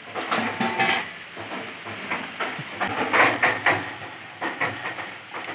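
Dog panting close up in quick, breathy bursts.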